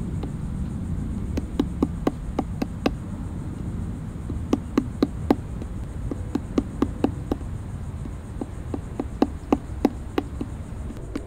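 Woodpecker tapping at a dead tree trunk: several short bouts of sharp knocks, a few a second, over a steady high insect buzz.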